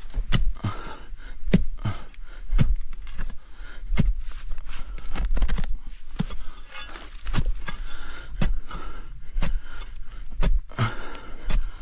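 A hand tool striking rock over and over, with a sharp hard knock every half second to a second and scraping of stone between the blows, as the rock is broken or pried out.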